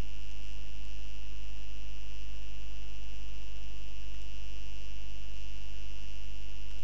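Steady low electrical mains hum with a constant high-pitched whine above it, unchanging throughout.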